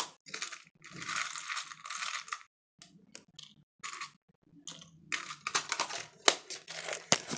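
Rummaging through a small pack of plastic googly eyes: a few scratchy rustling bursts, then scattered light clicks and rattles.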